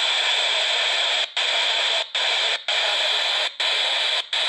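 Icom IC-R6 handheld scanner's speaker hissing with static: no station is being received on the tuned frequency. The hiss drops out briefly about five times as the tuning knob is turned a step at a time.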